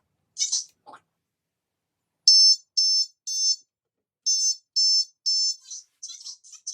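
Smoke alarm sounding the temporal-three evacuation pattern: two groups of three short, high-pitched beeps about half a second apart, with a pause between the groups. A few brief hissing sounds follow near the end.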